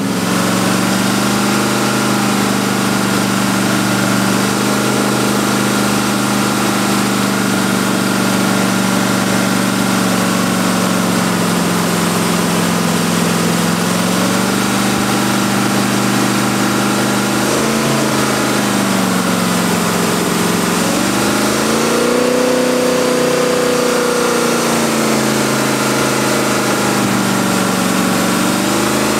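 Engine of a 1970s fiberglass jet boat running hard, its pitch dipping and climbing again several times, most deeply about twenty seconds in, over the rush of water and spray thrown off the jet.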